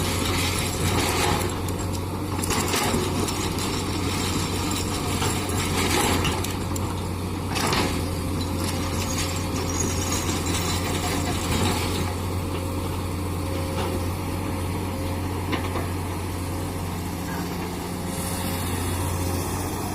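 Komatsu PC200 excavator's diesel engine running steadily under load, with a few knocks in the first eight seconds.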